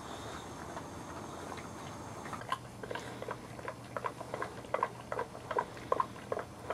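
Two-week-old Boxer puppies giving short, quick squeaks, about three a second, starting about two and a half seconds in.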